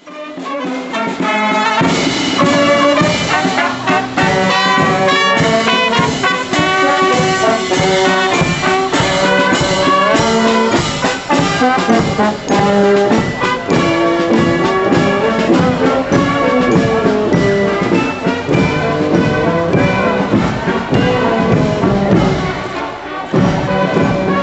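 Marching brass band, with saxophones and a tuba, playing a tune as it walks.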